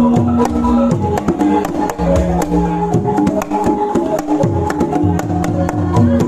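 Kendang hand drum playing a quick, busy pattern of sharp strokes over Banyumasan calung music, with melodic pitched notes and deep low notes beneath.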